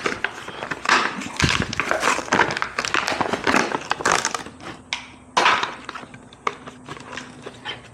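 A tire plug repair kit being opened and handled: its packaging crinkling and rustling, with small clicks and knocks.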